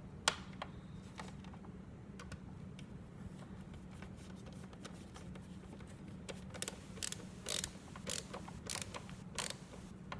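Small screws being driven by hand into the plastic housing of a Big Mouth Billy Bass: a sharp click just after the start, then from about the middle a run of short scraping, ratchet-like turns about twice a second.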